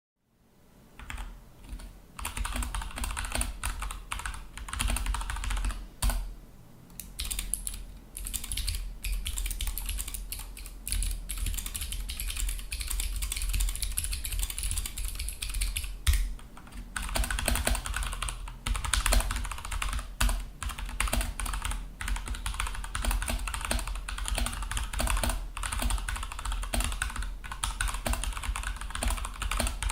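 Mechanical keyboard with Gateron switches being typed on quickly and continuously, many keystroke clicks a second. The typing pauses briefly about six seconds in and again around sixteen seconds.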